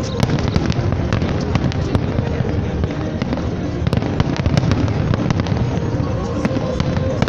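Fireworks display: many shells bursting and crackling in quick succession over a continuous low rumble of booms.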